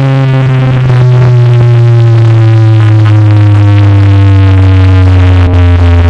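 DJ remix music playing loud, dominated by one long sustained synth bass note that slides slowly downward in pitch.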